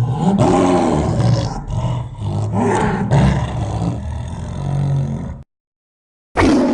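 Stock big-cat roar sound effects: a long roar rising and falling in several pulses that cuts off abruptly about five seconds in, then after a second of silence another roar starts near the end.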